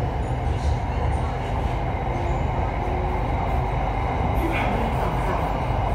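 Cabin noise inside a Hitachi-built electric commuter train as it pulls away from a station: a steady rumble of wheels on rail and running gear, getting slightly louder as it gathers speed.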